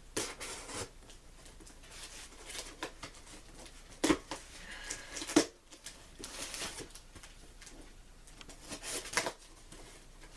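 A shipping box being opened and its packing handled: irregular rustling and scraping, with two sharper knocks about four and five and a half seconds in.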